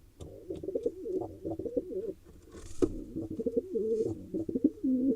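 Male pigeon cooing in courtship: two long bouts of low, wavering coos, with a brief rustle and click in the short break between them.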